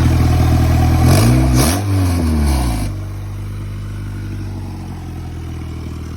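Turbocharged Honda Accord engine running on its first start after the turbo install. It is revved once, rising in pitch about a second in and falling back, then settles to a quieter steady idle about three seconds in.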